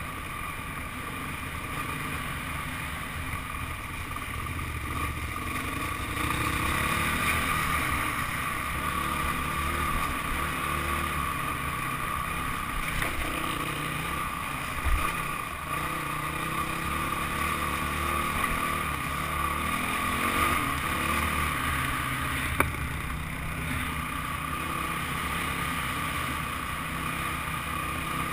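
Dirt bike engine running under way, its pitch rising and falling with the throttle. Two sharp knocks come about halfway through and again a little later.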